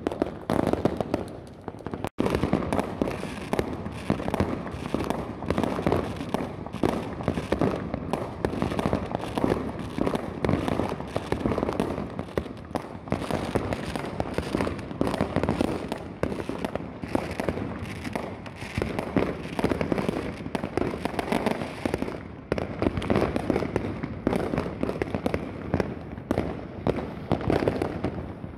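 Many fireworks and firecrackers going off at once: a continuous barrage of bangs, pops and crackling with no pause.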